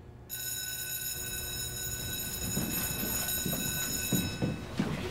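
School bell ringing with a steady, high electronic tone that starts suddenly and fades after about four seconds. From about halfway through, the bustle of a class coming in, with knocks and shuffling, rises beneath it.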